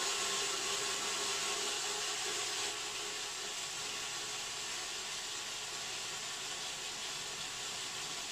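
Small one-handed cordless screwdriver running steadily with a hex bit, backing out an Allen screw from a subwoofer's metal grille: a continuous motor whirr that gets slightly quieter about three seconds in.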